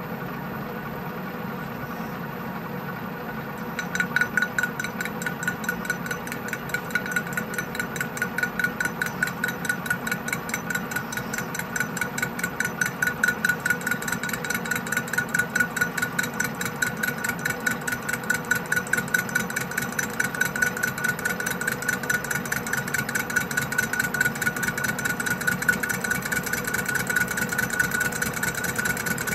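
Colchester Student lathe running with a thick steel plate spinning in its four-jaw chuck, a steady machine hum; about four seconds in the facing cut begins, adding a ringing tone from the tool on the steel that pulses several times a second.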